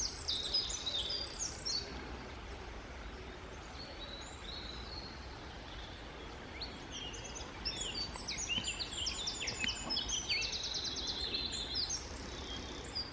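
Woodland birds singing: scattered high chirps and short rapid trills, busier in the second half, over a faint low rumble of wind on the microphone.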